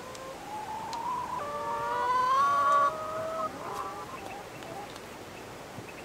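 Domestic hens calling through the first half: long, slowly rising calls, several overlapping, loudest about two to three seconds in.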